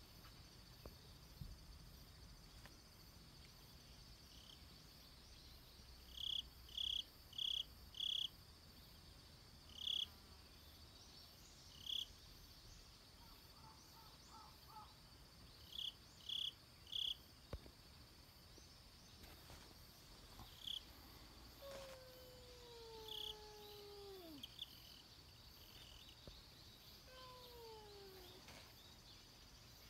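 Faint outdoor ambience: a steady high insect drone, with short high chirps in runs of three or four. Two long falling calls come in the second half.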